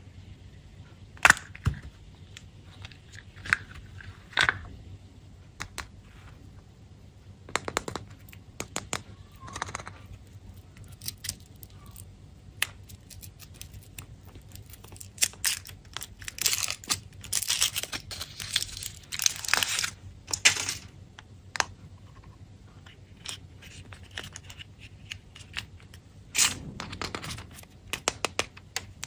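Candy wrappers being torn open and crinkled by hand, with scattered sharp clicks and taps; the crinkling comes in a dense run about halfway through.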